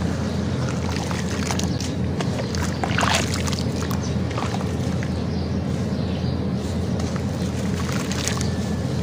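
Hands squishing and stirring wet sand-cement mix in a plastic tub: scattered gritty crackles and wet squelches, with a denser crunchy burst about three seconds in, over a steady low rumble.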